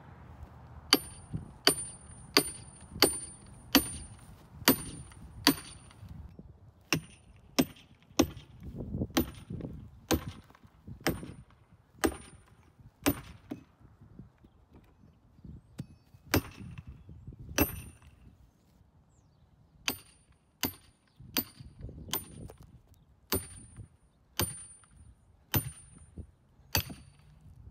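A short-handled sledgehammer strikes a steel chisel driven into the end grain of a hollow log, steel on steel. Sharp blows with a brief metallic ring come in runs about one every 0.7 s, with a few short pauses between runs.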